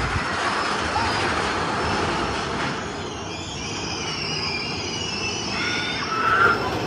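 A rail vehicle rolling along with a steady rumble, its wheels squealing high for a few seconds from about three seconds in.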